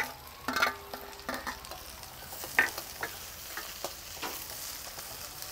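Sliced onions sizzling as they go into hot sesame oil in a stainless steel frying pan with garlic and green chillies. A metal spoon stirs them, clicking and scraping against the pan several times.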